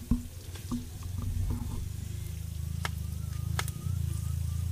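A metal ladle stirring and tapping against a wok of frying bananas, with a few sharp clicks, over a steady low hum.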